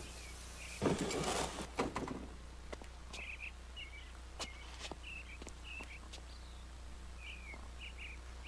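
Birds chirping in short repeated calls over a quiet background, with a brief rush of noise about a second in and a few faint scattered clicks.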